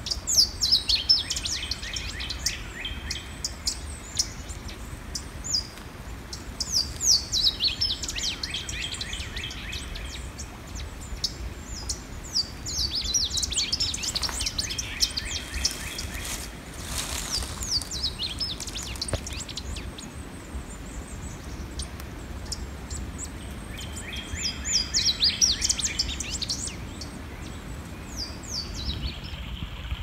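Louisiana waterthrushes singing, two birds answering each other to establish territory. There are about four bouts of song, each a run of clear high notes slurring down in pitch that ends in a quick jumble. A creek's steady rush runs underneath.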